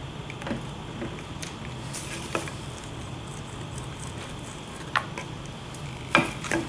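Handling sounds of acrylic paint being squeezed from a plastic squeeze bottle onto a plate: scattered light clicks and taps, with a couple of louder knocks near the end as the bottle is put down on the plastic-covered table. A low steady hum runs underneath.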